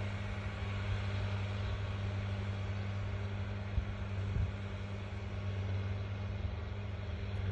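Diesel farm tractors running steadily while pulling tillage implements across the soil, a steady low engine drone.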